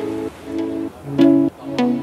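Background music: a light instrumental tune of pitched notes and chords that change about twice a second.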